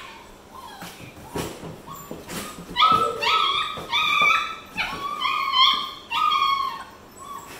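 German Shepherd puppy shut in a cardboard box, crying: a few knocks against the box, then from about three seconds in a run of short, high whining cries, about seven of them, each held at one pitch for about half a second.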